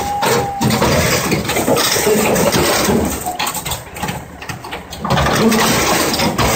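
Crawler excavator's engine running under load as the machine drives off a trailer, getting louder about five seconds in.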